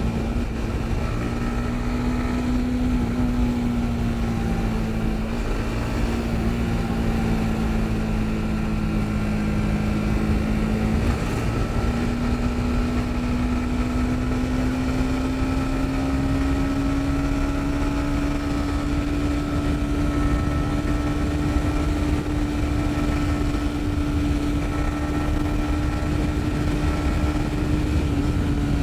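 Yamaha MT-15's 155 cc single-cylinder engine running steadily while riding, its pitch sagging a little and then climbing slowly from about a third of the way in.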